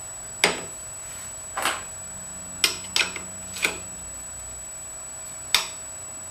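Metal parts clinking as an aluminium drive plate is fitted to a linear carriage and a hex driver is set into its bolt: about six sharp clicks at uneven intervals, each with a brief ring.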